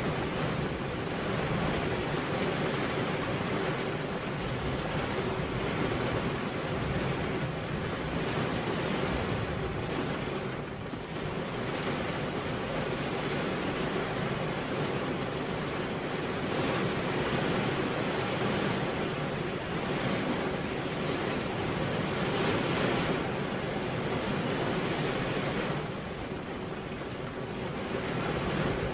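Rain falling on a car window: a steady, even hiss that swells and eases a little, dipping briefly about eleven seconds in and again near the end.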